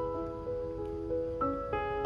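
Gentle background music: a slow keyboard melody of sustained notes, a new note starting every half second or so.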